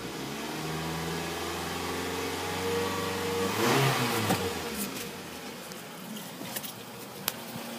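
The 2005 Toyota Tarago ACR30's 2.4-litre four-cylinder engine being revved: the pitch climbs slowly for about three seconds, peaks in a loud blip, and drops back to a steady idle. A few sharp clicks come near the end.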